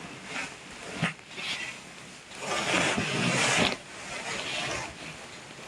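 A person snoring: a short snort about a second in, then a long, loud, noisy breath in the middle that cuts off abruptly, followed by a softer breath.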